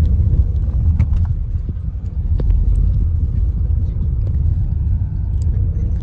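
Steady low rumble of a car in motion heard from inside the cabin, with a few faint clicks.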